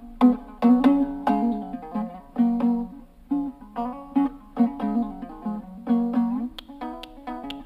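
Kazakh dombra playing a küi: fast, rhythmic strummed strokes carrying a melody over a recurring low note.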